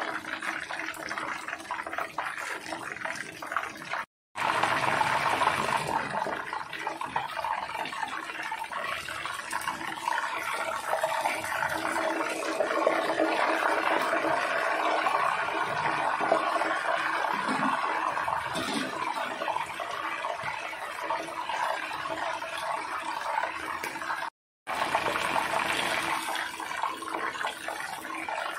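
Whole fish frying in hot oil in a wok: a steady sizzling and bubbling of the oil, broken twice by a moment of silence.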